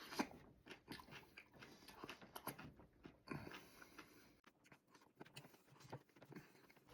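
Faint biting and chewing of a crunchy pickle, with irregular soft crunches and mouth clicks.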